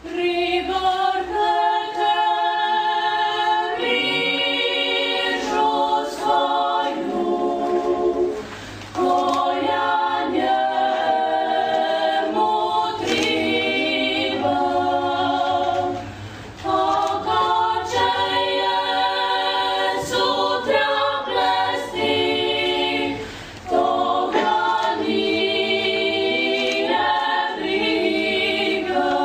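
A young klapa group singing Dalmatian a cappella in close harmony, girls' and boys' voices together, in long phrases of held chords with a short breath between them about every eight seconds.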